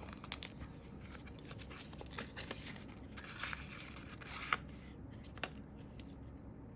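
Photo cards and plastic packaging being handled: faint rustling with many small clicks, a couple of sharper clicks about four and a half and five and a half seconds in, then quieter.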